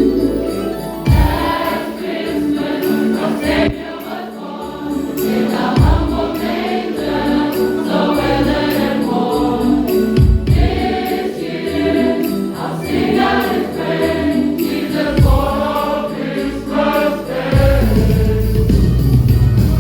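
Youth and Sunday school choir singing a Christmas medley with accompaniment, deep low thumps landing now and then and a held bass note near the end.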